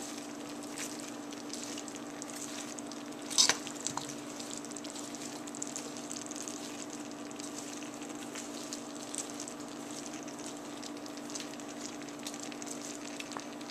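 Chicken and mixed vegetables sizzling and crackling in a wok as they are stirred with a wooden spoon, over a steady low hum. One louder knock comes about three and a half seconds in.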